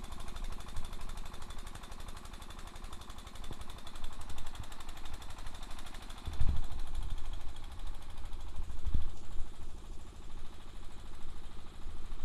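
Wet-feed pellet mill driven by a 17 hp diesel engine running steadily under load: a rapid, even knocking from the engine with the churn of the extruder pressing mash into pellets. A couple of low thumps stand out, about six and about nine seconds in.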